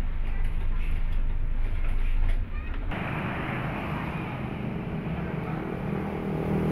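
Coach bus engine rumbling as heard from inside the bus. About three seconds in it cuts to the bus's diesel engine idling steadily.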